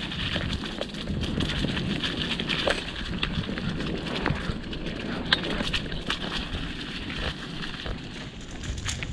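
Bicycle tyres rolling over a forest path strewn with dry leaves and twigs, a steady crackle of many small irregular clicks over a constant rolling noise.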